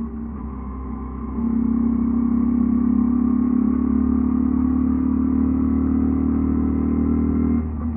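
Mutt Akita 125's 125cc single-cylinder engine running. About a second and a half in it gets much louder and holds a steady pitch for about six seconds, then drops back to a quieter hum near the end.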